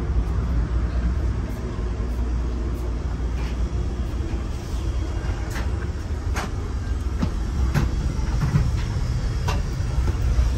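Steady low rumble inside a moving Budd stainless steel passenger car as it rides on the rails, with scattered sharp clicks and knocks in the second half.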